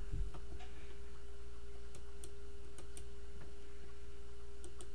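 A few scattered, faint clicks of a computer keyboard and mouse as a value is typed in and entered, over a steady electrical hum.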